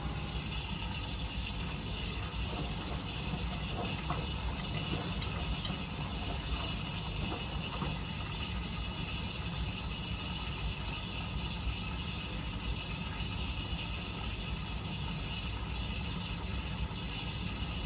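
Miele W Classic washing machine running mid-wash on its 40 °C coloureds programme: a steady low rumble with a few faint mechanical clicks. A louder motor hum dies away at the very start.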